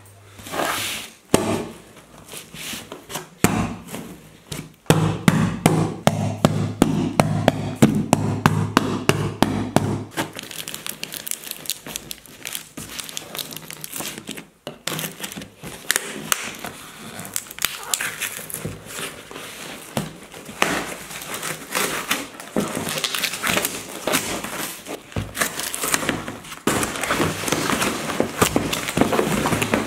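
Cardboard parcel sealed with packing tape being cut and torn open by hand: tape ripping, cardboard flaps and inner wrapping crinkling and rustling, with many short sharp knocks and tears.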